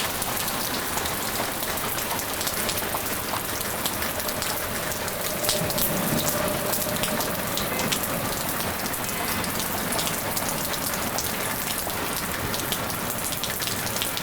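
Steady heavy rain, with many individual drops striking a surface close by. A faint steady tone sounds underneath for a few seconds in the middle.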